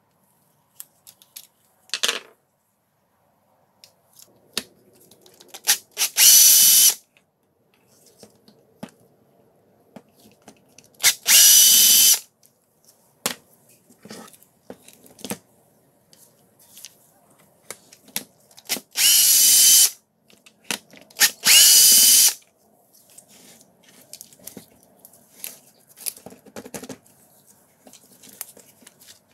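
Small power driver motor whirring in four short bursts of about a second each, as housing screws are run out of a DeWalt hammer drill being taken apart. Light clicks and knocks from handling the parts come between the bursts.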